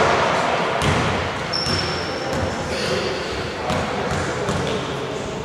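A basketball bouncing on a wooden court in a large sports hall, with repeated short thuds and players' movement. A thin, high steady tone sounds for about a second near the middle.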